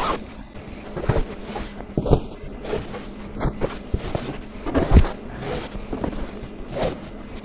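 Fabric storage baskets being handled: irregular knocks and scrapes as they are stacked and slid into a wooden changing table's compartments. The loudest thump comes about five seconds in.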